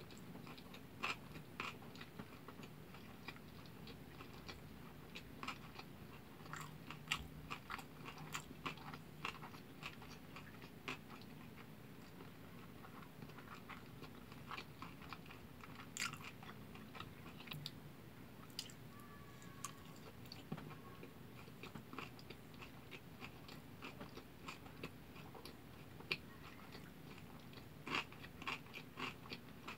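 A person chewing a mouthful of kimbap: soft, irregular mouth clicks and small crunches, with the lips closed.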